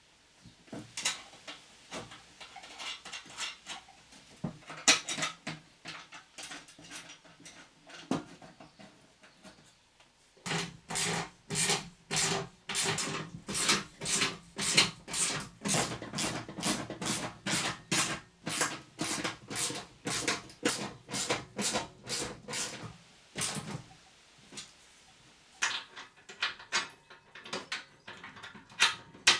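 A ratchet spanner clicking in quick, even strokes, about three or four a second, as a nut is run down on a mower deck's spindle housing; it starts about a third of the way in and stops near the end. Before and after it, scattered light metal clicks and taps of bolts and parts being handled.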